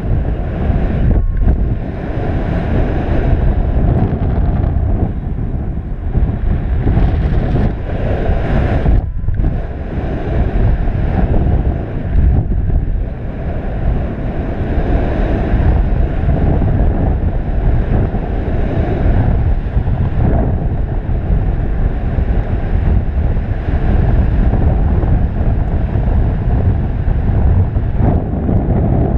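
Steady, loud roar of wind noise on the camera microphone from the airflow of a paraglider in flight, heaviest in the low end.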